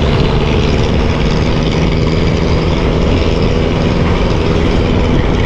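Motorbike under way: its engine running steadily beneath a loud, even rush of wind noise.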